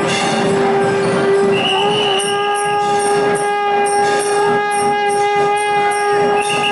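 One long, steady, horn-like note with a stack of overtones, held for several seconds over crowd noise. A higher, thinner tone joins it briefly twice.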